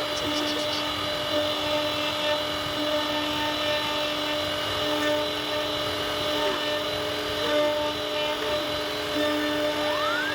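CNC router spindle running steadily as it carves wood, a constant pitched whine over the noise of the cutter.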